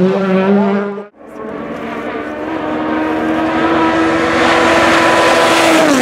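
Rally car engine at high revs. After a sudden cut about a second in, a car approaches, its engine note and tyre hiss growing steadily louder until it passes close near the end, the pitch dropping as it goes by.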